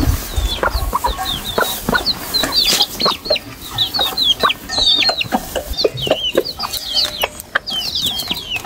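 Chickens feeding: a steady stream of short, high peeps from young chicks over soft, short clucks from the hens.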